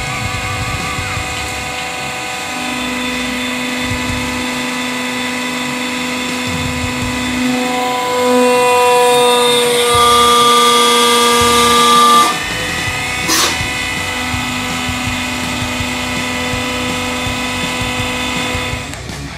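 Hydraulic press motor and pump running with a steady whine, crushing a stack of paper. The whine grows louder and shifts in pitch as the load rises, with a rising tone, then drops back suddenly. A single sharp crack follows about a second later.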